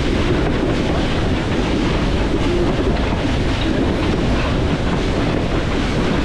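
Western Maryland Scenic Railroad train on the move: a steady rumbling rush of running noise, heaviest in the low end.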